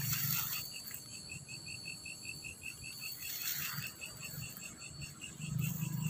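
Night insects chirping: one insect repeats a short, evenly spaced chirp about five times a second, over a steady higher-pitched insect drone. Brief rustles of feet moving through grass come near the start and about three and a half seconds in.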